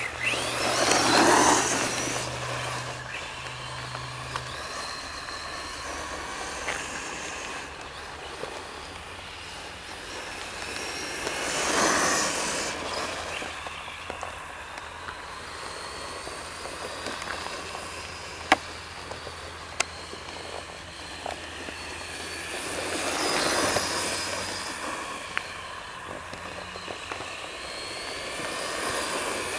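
Radio-controlled off-road buggy driving around, its motor whining and its tyres hissing on the court surface. The whine rises and falls, swelling loud as the car passes close about a second in, again around twelve seconds and near twenty-four seconds. Two sharp clicks come around the middle.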